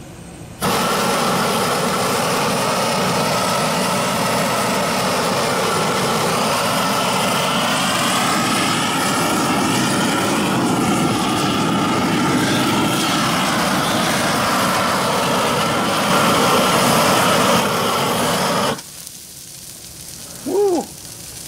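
GrillBlazer GrillGun propane searing torch running with a loud, steady roar as it sears steaks on the grill, starting about half a second in and cutting off sharply near the end. A short pitched blip follows about two seconds later.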